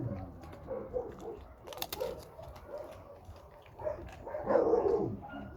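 Dogs barking and whining in short pitched calls, with a louder falling call about four and a half seconds in. A brief crackle is heard near two seconds.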